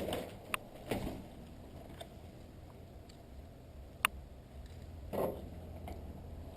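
Quiet outdoor movement: a few soft rustles and two or three short, sharp clicks.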